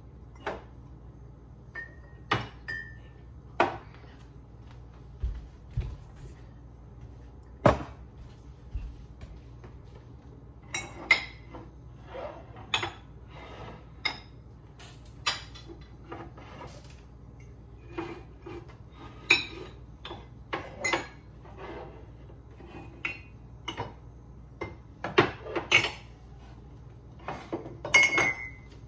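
Glass food jars clinking and knocking against each other and against the cabinet shelf and counter as they are taken down and set out, in irregular clinks and knocks, a few ringing briefly.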